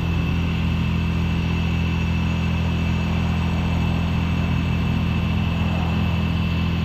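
Steady mechanical hum from a running motor or engine: a low drone with a faint high whine above it, unchanging throughout.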